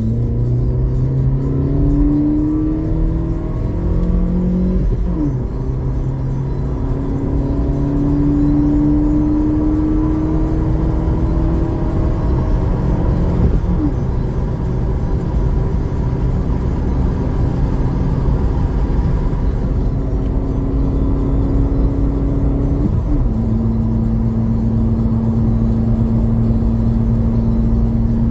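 Corsa car engine pulling through the gears: its pitch climbs slowly, then drops at each of three gear changes, about 5, 13 and 23 seconds in, and holds steady after the last, over steady road noise.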